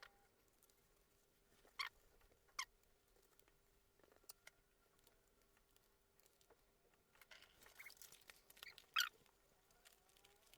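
Near silence broken by a few brief scrapes and squeaks of a stick stirring two-part epoxy resin in a cup: two about two seconds in, then a cluster near the end, the loudest about nine seconds in.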